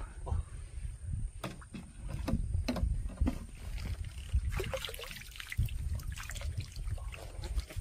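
Water splashing and dripping as a fish landing net is moved through the shallows, with a few sharp knocks in the first half and a splashier stretch a little past the middle, over a low rumble of handling noise.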